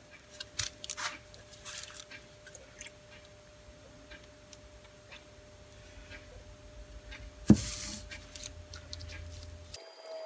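Light metal clicks and ticks as a rusty caliper's parts are worked back and forth to free a stuck piece, with one sharp, louder click about three-quarters of the way through.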